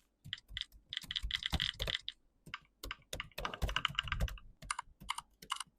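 Mechanical-keyboard typing sounds played by the Mechvibes app as keys are pressed on an ordinary keyboard: irregular sharp clicks in quick runs, with a few separate keystrokes near the end.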